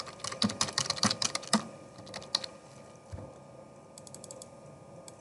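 Typing on a computer keyboard: a quick run of key clicks in the first second and a half, a few more about two seconds in, and a short fast burst of clicks about four seconds in.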